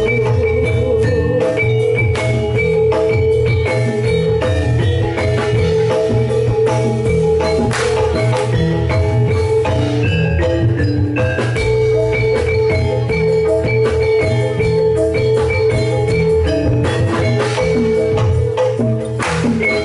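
Javanese jathilan gamelan music, played loud through a sound system: metallophones ring out a repeating melody over drum strokes and a heavy bass.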